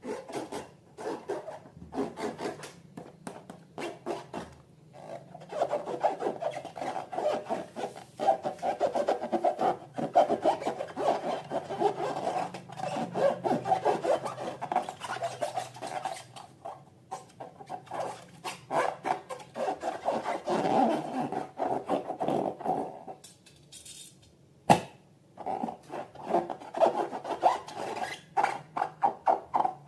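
Fast, repeated rubbing and scraping strokes, with a short pause and a single sharp click about three quarters of the way through, then quick even strokes at about three to four a second near the end.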